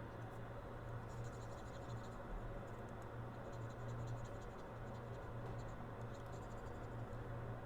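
Faint scratching of a soldering iron tip worked over the solder pads of a phone logic board to level an uneven pad, in two short spells, over a steady low hum.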